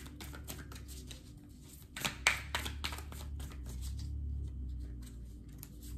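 Oracle cards being shuffled and handled: rapid papery clicks and riffles, with a sharper snap about two seconds in, thinning out after about four seconds.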